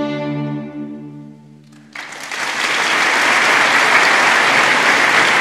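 A string orchestra holds its final chord, which fades away, then audience applause breaks out suddenly about two seconds in and swells.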